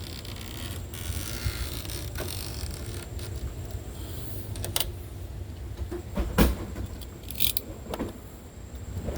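Hand work on a screen door and its metal frame: scattered clicks and scraping, with one sharp knock about six and a half seconds in and a short high scrape a second later.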